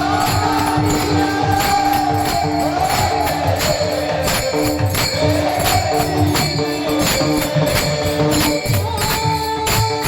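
Devotional kirtan music: a melody line over a steady beat of jingling metal percussion and drum strokes, with held drone-like notes underneath.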